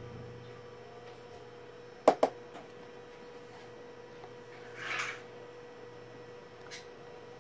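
Small handling clicks at a workbench while a wire is soldered onto a circuit board, over a steady low hum. Two sharp clicks close together about two seconds in are the loudest sounds; a brief soft hiss comes about five seconds in, and a faint click near the end.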